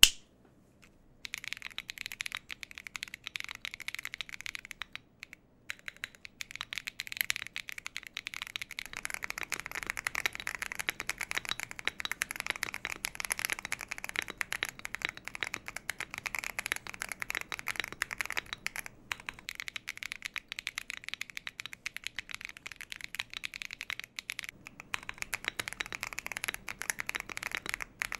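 Continuous fast typing on a mechanical keyboard with lubed Akko Wine White linear switches and Akko keycaps: a dense run of keystroke clicks. It starts with a single click, the typing begins about a second in, and it breaks briefly a few times.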